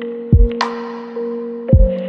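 Electronic background music: held steady tones with two deep bass hits and a sharp high hit between them.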